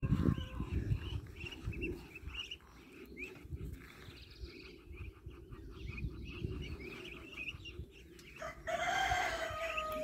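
Muscovy ducklings peeping in many short, high chirps. About eight and a half seconds in, a louder, long drawn-out crow-like call starts and runs on for about two seconds.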